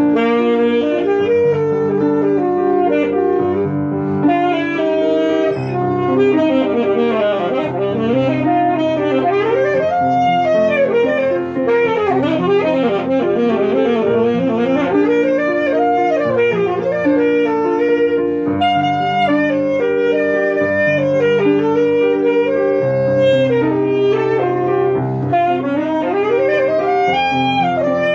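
Alto saxophone playing a melody over grand piano accompaniment, with quick rising and falling runs around the middle.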